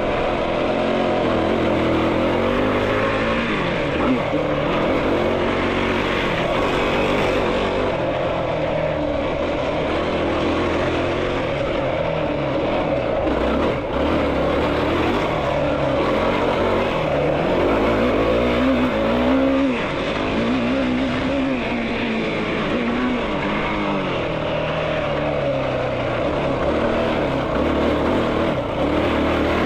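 Yamaha YFZ450R sport quad's single-cylinder four-stroke engine running hard under riding, its pitch rising and falling over and over as the throttle is worked.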